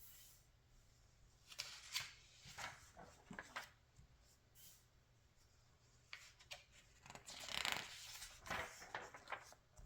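Magazine pages being handled and turned, with soft paper rustles and crackles in two bouts: one about a second and a half in, the other from about six seconds to near the end.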